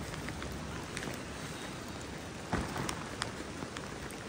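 Heavy rain falling steadily, with a few sharp louder drop ticks now and then.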